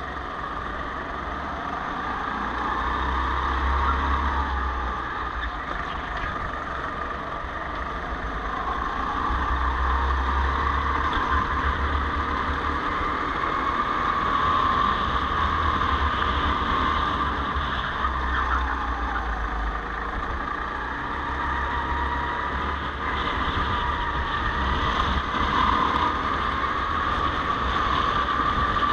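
Go-kart engine heard from the driver's seat, its pitch rising and falling over several seconds as it revs up along the straights and drops off into the corners.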